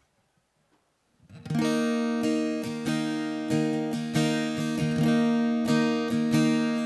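Acoustic guitar strumming a steady chord pattern as a song's introduction, starting about a second in after near silence.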